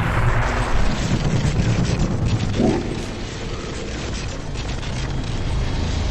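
Deep rumbling and booming sound effects, a continuous low rumble with crackle in it that eases a little about halfway through.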